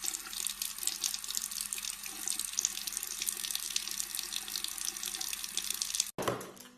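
A thin stream of water runs from a bathroom sink faucet and splashes into the basin, making a steady spattering hiss. It cuts off abruptly near the end.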